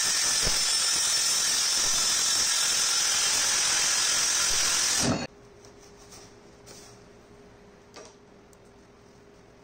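Makita cordless brushless circular saw running steadily as it cuts through large PVC pipe, with a high whine. It stops abruptly about five seconds in, leaving a faint hum and a couple of light knocks.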